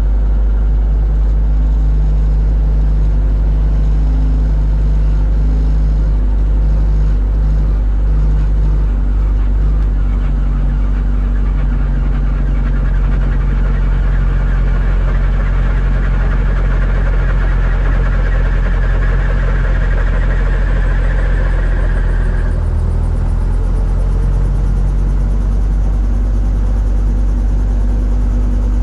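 Robinson R22 helicopter's four-cylinder Lycoming piston engine running steadily after start, heard inside the cockpit as a loud, even drone with a deep hum. A higher rushing sound builds up in the middle and stops abruptly about two-thirds of the way through.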